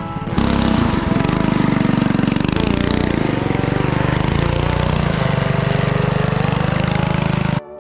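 Go-kart's Predator 212 single-cylinder engine running while the kart is driven, its pitch drifting up and down with the throttle. The sound breaks off briefly just after the start and again just before the end.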